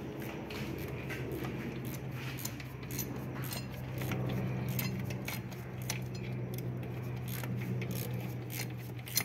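Irregular light metallic clicks and clinks of tools being handled, over a steady low hum that grows a little louder about four seconds in.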